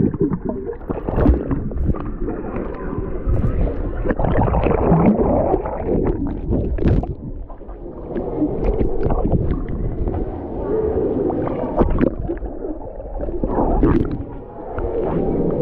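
Muffled sloshing, splashing and bubbling of swimming-pool water around a camera dipped in and out of the water, with many short splashes throughout.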